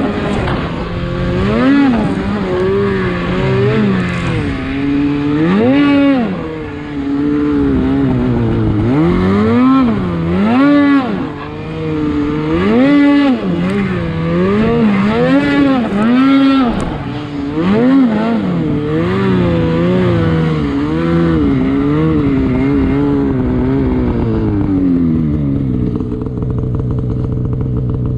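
Snowmobile engine revving up and down over and over while being ridden, then settling to a steady lower note near the end.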